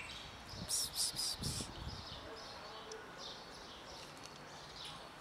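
Small birds chirping: a quick run of short high chirps about a second in, then scattered fainter ones.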